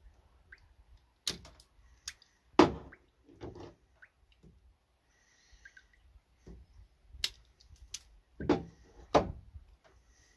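Irregular clicks and knocks from hands handling wires, crimp connectors and hand tools on a fibreglass boat deck, the loudest a single thunk about two and a half seconds in.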